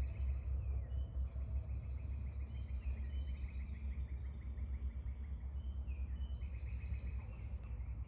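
Northern cardinal singing: phrases of fast repeated whistled notes, 'what what what', each a second or two long and following one another, over a steady low rumble.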